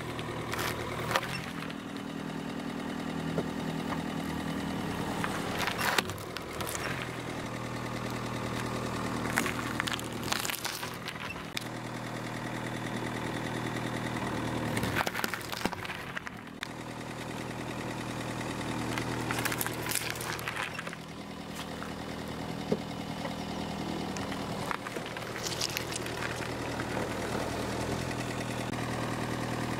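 A car engine idling steadily while the tyre rolls slowly over carrots, beets and tomatoes. Sharp cracks and squishes come every few seconds as the vegetables split and burst under the tyre.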